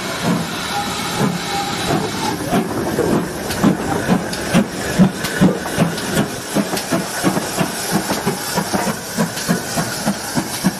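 GWR 5600 class 0-6-2 tank engine No. 5643 getting under way: a steady hiss of steam, then its exhaust beats start about two seconds in and quicken as it gathers speed.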